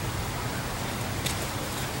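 Steady rushing wind on the microphone, with low buffeting and a faint click about a second in.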